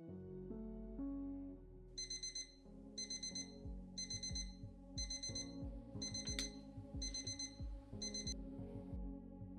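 Phone alarm beeping in quick bursts of several beeps, about one burst every three-quarters of a second, starting about two seconds in and stopping about a second before the end, over soft background music with a low, slow pulse.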